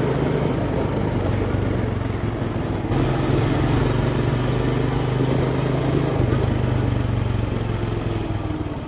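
Small motorcycle's engine running steadily while riding, with a loud even rush of wind noise over it.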